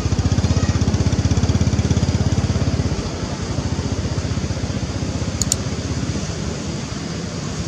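A small engine running with a fast, even pulse, loudest for the first three seconds and then easing off, like a motorbike going by. Two brief high clicks come about five and a half seconds in.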